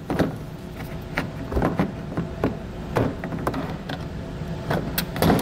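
Scattered plastic clicks and knocks as a trim panel tool pries a wiring-harness push pin out of the plastic bumper fascia, over a steady low hum.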